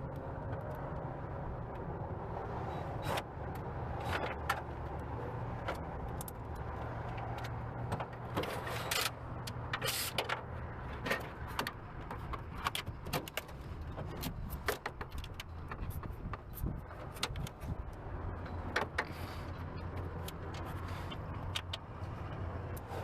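Scattered clicks, clinks and knocks of tools and loose metal and plastic parts being handled during car disassembly, over a steady low hum.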